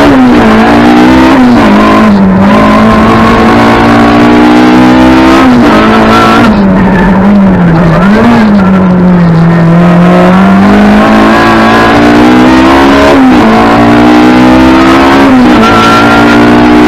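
Rally car engine at full effort, heard from inside the stripped, roll-caged cabin. Its pitch climbs and then drops sharply again and again as the car is driven hard through gear changes and corners, with a lower, steadier stretch about halfway through.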